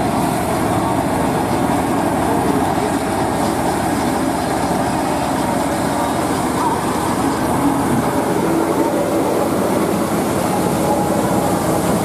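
Small electric motors of a homemade cardboard toy combine harvester running steadily, a dense, even whirring noise.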